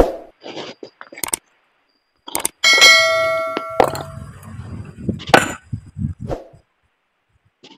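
Hard stone pieces knocking and clinking against each other as split rock is moved about. About three seconds in, one loud strike rings out with a bright ringing clang that dies away over about a second.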